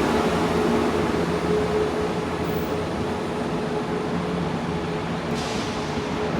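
A train running through the station, a steady rumble with a held humming tone, slowly getting quieter.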